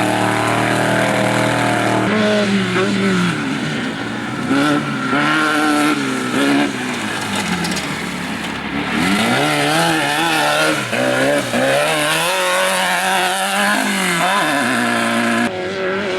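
Off-road race vehicle engines revving hard, their pitch repeatedly rising and falling as they accelerate and lift off.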